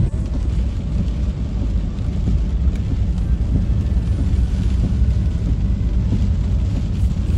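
Van driving along a flooded road, heard from inside the cab: a steady low rumble of engine and road noise.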